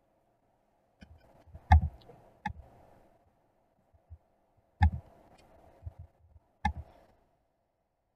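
Hands knocking and clicking on a desk or laptop: four louder knocks with a dull thud and several lighter clicks, irregularly spaced, over a faint steady hum.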